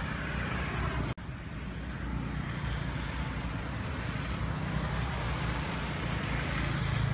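Steady outdoor background noise, a low rumble with hiss above it, that drops out for an instant about a second in.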